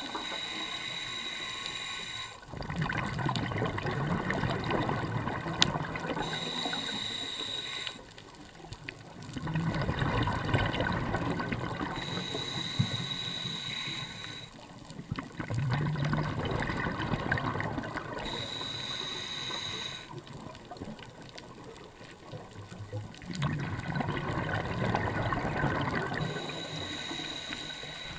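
Scuba diver breathing through a regulator underwater: a hissing inhalation alternates with a louder rush of exhaled bubbles, about one breath every six seconds.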